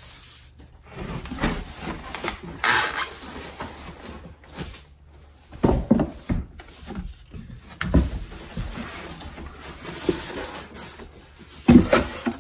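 Packaging being handled: plastic wrap rustling, foam packing blocks and cardboard scraping as a mini-split indoor unit is lifted out of its shipping box, with several dull thumps as it is shifted and set down.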